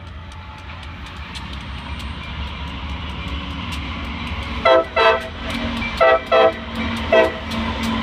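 Horn of a CSX freight's lead locomotive, an ex-Conrail EMD SD60I, sounding five short blasts: two quick pairs and then a single. Under it is the rumble of the diesel locomotives, growing louder as they approach.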